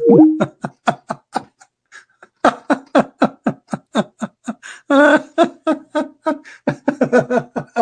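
A man laughing hard: a long run of rapid, rhythmic 'ha' pulses that eases briefly about two seconds in and swells louder again about five seconds in.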